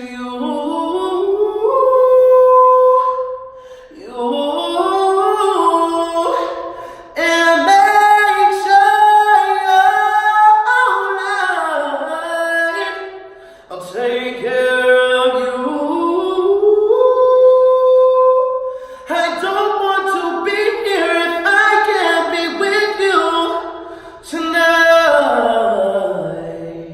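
Unaccompanied wordless singing by a male tenor: about six phrases that climb and fall in steps and slides, some notes held, each ending in a short breath.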